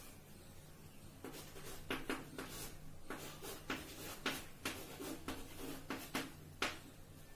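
Chalk writing on a blackboard: a run of short, irregular taps and scrapes as numbers are written, starting about a second in and stopping near the end, over a low steady hum.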